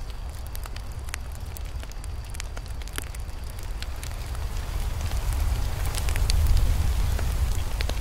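Campfire burning: scattered wood crackles and pops over a steady low rumble, which swells louder a little past halfway and then eases back near the end.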